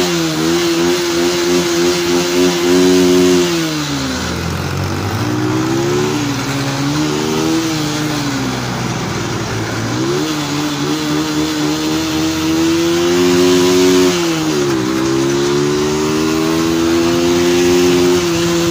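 Motorcycle engine running under way, with wind rushing over the microphone. The engine note drops about four seconds in and climbs back, then dips again about fifteen seconds in and rises to a steady pitch, as the rider eases off and opens the throttle.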